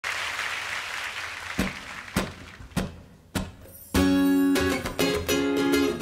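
Audience applause dying away, then four evenly spaced taps counting in, and an acoustic guitar starts strumming chords about four seconds in.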